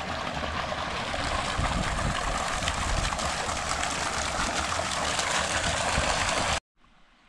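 Pumped water pouring steadily from a delivery pipe into a fishpond, a continuous rushing splash. It cuts off suddenly near the end.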